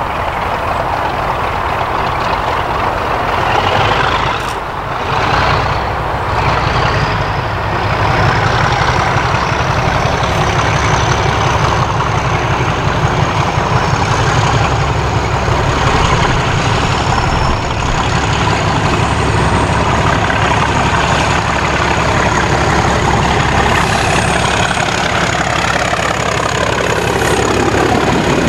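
English Electric Class 37 diesel locomotive working hard under power as it approaches and passes close by, its V12 engine running loud with a high turbocharger whistle that climbs in pitch a few seconds in. The engine and whistle drop in pitch as it goes past near the end.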